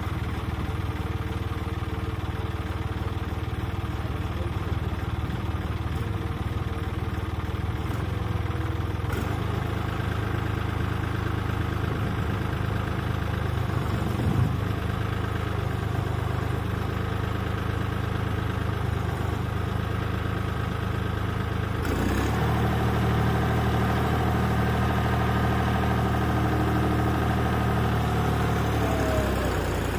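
John Deere 5310 tractor's three-cylinder diesel engine running steadily at low speed. About two-thirds of the way in it steps up and runs louder, and near the end a short falling note is heard as the engine speed drops.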